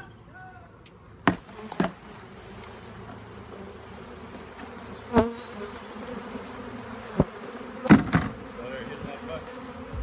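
A honey bee swarm buzzing steadily around a hive box as the bees settle onto it, broken by a few sharp close knocks, the loudest about eight seconds in.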